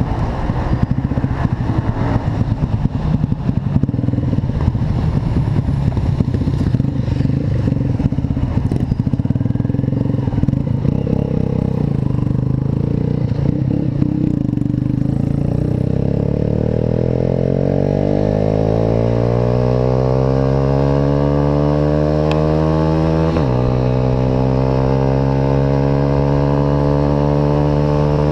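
Motorcycle with an Atalla aftermarket exhaust under way: a choppy, pulsing exhaust note at low revs for the first half, then the engine note climbs steadily as it accelerates, drops sharply at a gear change about two-thirds of the way through, and climbs again.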